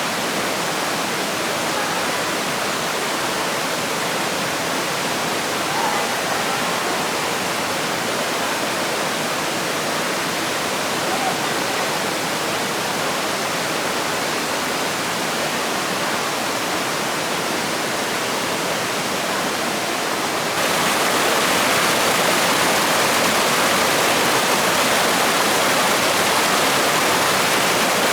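Steady rushing noise of flowing water, stepping louder about three-quarters of the way through.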